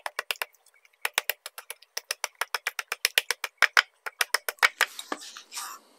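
Rapid pounding of a wooden pestle on a slab of dried smoked beef lying on a wooden chopping board: quick runs of sharp knocks, about six a second, with a short break about half a second in, and the knocking stops about five seconds in. The meat is being beaten to soften it before shredding.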